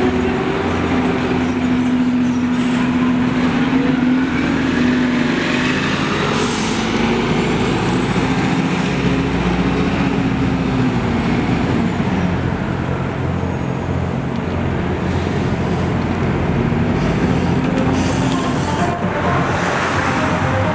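Nova Bus RTS-06 city bus with a Detroit Diesel Series 50 inline-four diesel running as it drives past and pulls away, its engine pitch shifting a few seconds in, with city traffic around it. A short hiss of air comes about six and a half seconds in.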